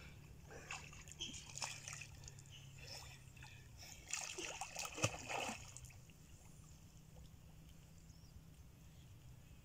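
Faint splashing and sloshing of pond water as a person swims through it: scattered splashes over the first five or six seconds, the loudest cluster about four to five seconds in, then only faint lapping.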